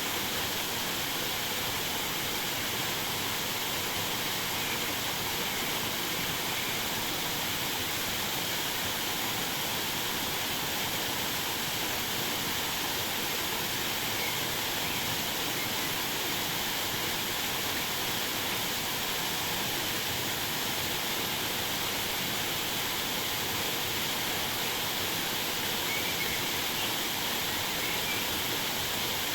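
Waterfall rushing steadily, with a few faint bird chirps now and then.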